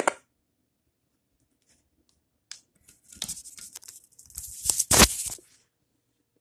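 Handling noise: rustling and scraping against the microphone, with many small clicks, starting about three seconds in and loudest about five seconds in.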